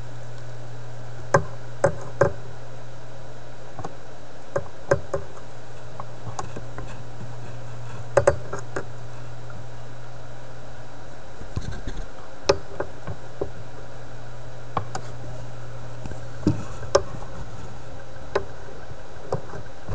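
Irregular light clicks and knocks of handling inside a wooden record player cabinet, as a screw dropped into the amplifier is sought out. They come over a steady low hum.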